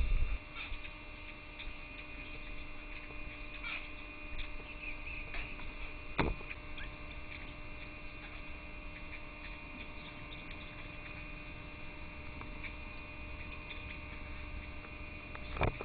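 A steady hum with several faint short chirps over it, and two sharp clicks: one about six seconds in and one near the end.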